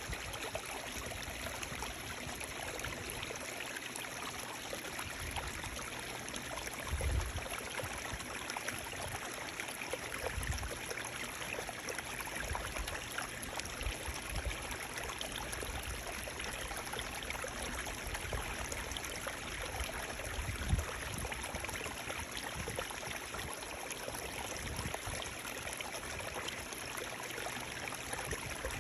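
Running water flowing with a steady, even rush. Two brief low thumps, about 7 seconds in and again near 21 seconds.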